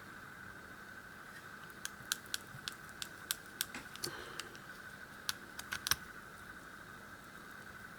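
A scatter of small, sharp clicks and snips, about a dozen between two and six seconds in, as a small hand cutter and fingers work at the wrapping of a mummified key to free it.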